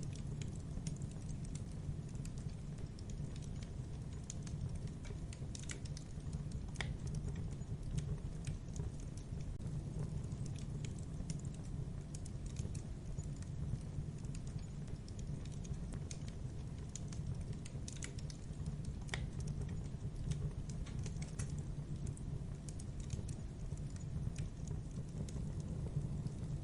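Crackling fire: irregular sharp pops and crackles over a steady low rumble.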